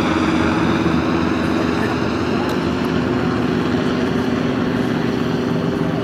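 Helicopter flying overhead, its engine and rotor making a steady drone that doesn't change.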